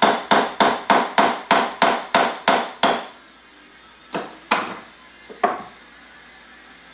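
Small hammer tapping a punch to drive the float pivot pin out of a 33mm Mikuni carburettor. About ten quick, even metallic taps, roughly three a second, stop about three seconds in. Three separate knocks follow a second or two later.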